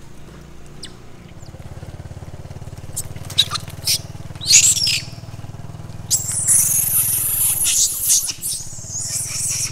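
Long-tailed macaques screeching and squealing during a squabble over food: short high-pitched cries about three to five seconds in, then a longer shrill stretch from about six seconds on. A low steady hum runs underneath.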